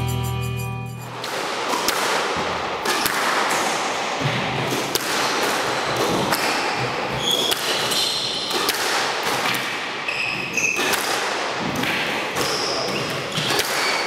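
Squash rally: the ball is struck by rackets and smacks off the court walls many times in quick succession, with short shoe squeaks on the court floor between shots. Music fades out in the first second.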